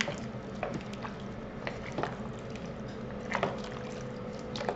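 A wooden spoon stirring chopped vegetables, water and stock cubes in a slow cooker's pot: wet squelching with irregular soft knocks of the spoon and vegetable chunks, several of them a second or so apart.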